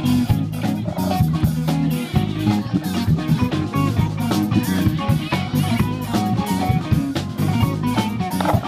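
Background music: a song with guitar and a drum kit keeping a steady beat.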